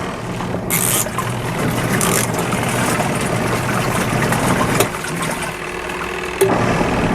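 Small portable electric washing machine running its wash setting on a rinse load of plain water: a steady motor hum with churning water. The sound eases for about a second and a half around five seconds in, then picks back up.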